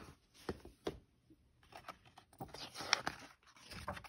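Faint finger taps on the pages of a hardcover picture book, with a short paper rustle of the book being handled about three seconds in.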